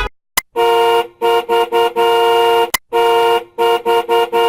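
Car horn honked in a rhythm of long and short blasts, the pattern played twice. Each run of blasts is preceded by a sharp click.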